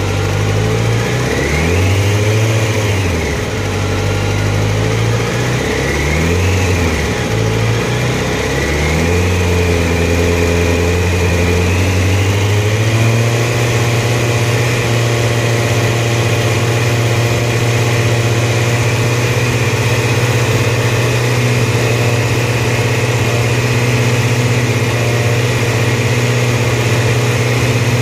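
A warm motorcycle engine idling in neutral with its revs hunting. The engine speed swells up and falls back three times, about every four seconds. Then, about 13 seconds in, it settles to a steady higher idle near 3,000 rpm.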